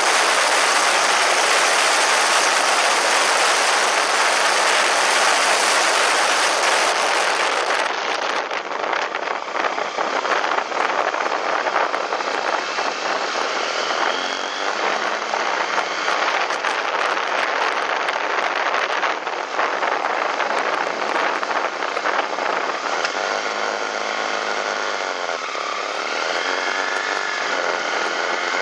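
Heavy wind rush over a BMW F800ST motorcycle at road speed, easing about 8 seconds in as the bike slows. Near the end, the parallel-twin engine note can be heard rising and falling under the wind.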